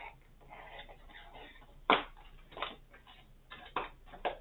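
Diamond painting kit being unpacked by hand: a soft rustle, then four short, sharp clicks and taps spread over the last two and a half seconds.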